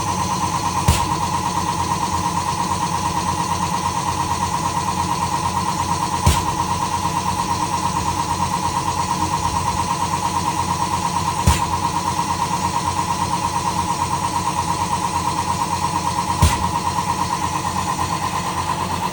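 Sandpiper air-operated double-diaphragm pump running steadily on a 7-bar test after repair, with a sharp knock about every five seconds, four times in all.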